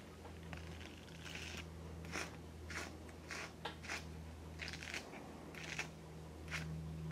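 Grooming tools working through a small dog's matted ear fur: about ten short strokes at irregular intervals of roughly half a second, over a steady low hum.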